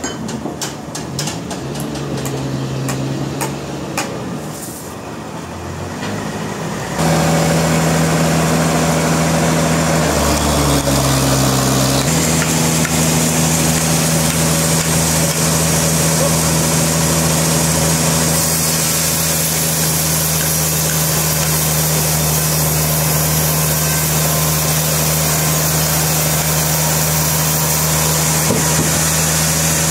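Sawmill machinery with an engine: sharp clicks and knocks at first, then about seven seconds in the engine comes up suddenly to a loud, steady drone. Its pitch sags briefly a few seconds later, as if under load, then holds steady.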